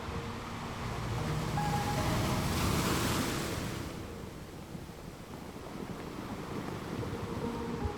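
Sea waves: a wave swells, breaks about three seconds in and washes back, over a steady wash of surf. Soft music is faintly underneath.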